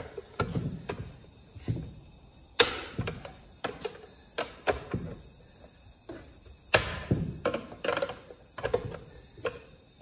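Irregular knocks, clicks and taps as a cover is pressed and worked back into place on a Stihl MS362 chainsaw with hands and a tool. The two loudest knocks come a little over two and a half seconds in and again at about two-thirds of the way through.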